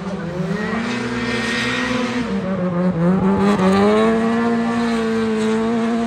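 Drift car engine held at high revs through a slide, its pitch steady apart from two brief dips and recoveries, with tyres squealing.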